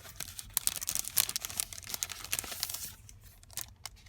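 Paper and plastic packaging being handled, irregular crinkling and rustling as craft paper ephemera is unwrapped and shuffled, busier in the first three seconds and thinning out near the end.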